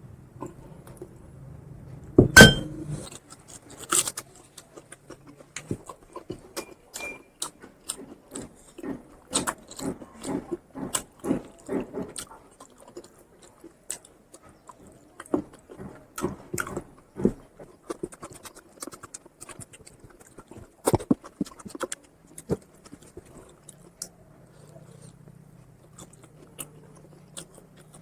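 A person chewing food close to the microphone, with many short wet clicks and smacks; a sharp knock about two seconds in is the loudest sound, and the chewing runs faster and steadier around ten to twelve seconds in.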